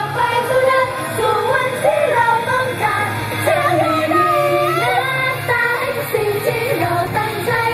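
Thai idol-pop song played at double speed through the sound system, with high female voices singing fast over the sped-up backing track.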